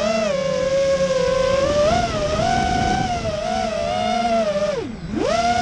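Mini racing quadcopter's brushless motors and propellers whining, the pitch wavering up and down with the throttle. About five seconds in, the whine dips sharply as the throttle is chopped, then climbs straight back.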